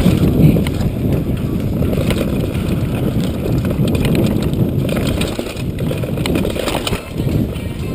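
Mountain bike riding fast down a rough dirt trail: a steady rumble of wind buffeting the on-board microphone and tyres on dirt, with frequent small rattles and knocks from the bike over bumps.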